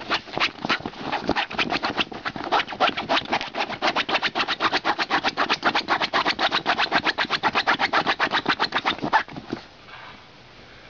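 Cairn terrier digging at the fabric seat of a folding camp chair, its paws scratching the cloth in a fast, even rhythm of about six strokes a second. The scratching stops suddenly about nine seconds in.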